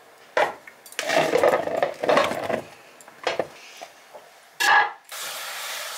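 Button mushrooms being gathered by hand and tumbled into a plastic colander, rustling and knocking against the plastic in a couple of bursts. Near the end a steady hiss starts.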